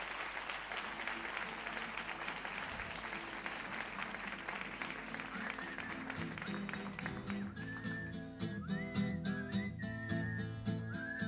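Audience applause fading out, then about seven seconds in an acoustic guitar starts playing and someone whistles a melody over it.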